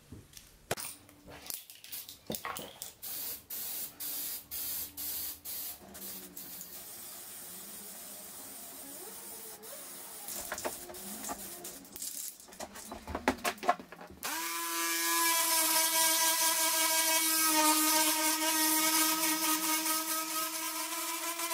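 Short, uneven scraping strokes against cast iron. About two-thirds of the way in, an electric detail sander starts and runs steadily with a pitched hum, sanding the paint off the raised lettering of a cast-iron Singer treadle base.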